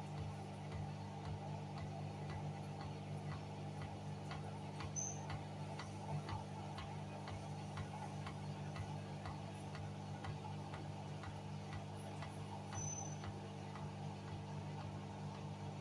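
Hoover washing machine running with a steady hum, and a light, regular ticking about three times a second through the middle that fades out near the end.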